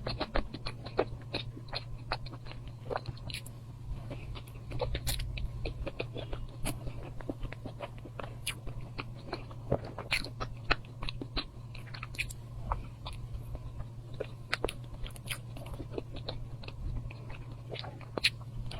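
A person chewing and biting food, with many short, irregular mouth clicks, over a steady low hum.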